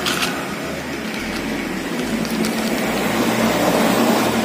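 Steady background rumble with a low hum, swelling a little toward the end, and a faint click just after the start.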